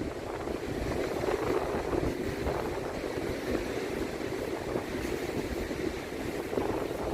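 Wind buffeting the microphone, a steady rushing noise with a fluttering low rumble.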